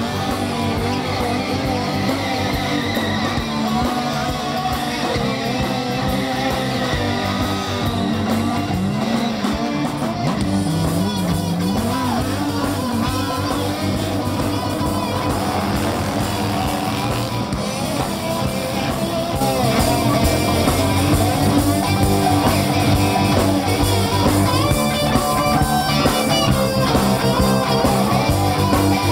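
Rock music with electric guitar, bass and drums, getting louder about two-thirds of the way in.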